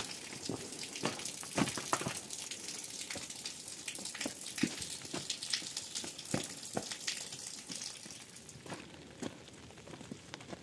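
Rain falling, a steady hiss dotted with irregular drop taps, fading somewhat after about eight seconds.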